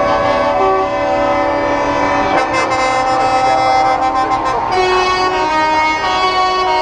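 Several truck air horns blaring together: long overlapping blasts at different pitches, some cutting in and out while others hold on.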